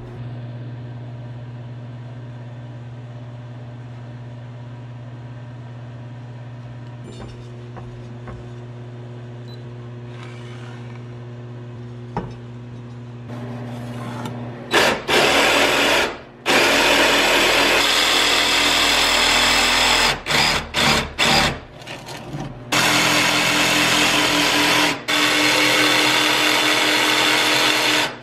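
A steady low hum at first; then, about halfway in, a DeWalt cordless jigsaw cuts through a wooden board in loud runs, stopping and starting several times, with a long steady run near the end.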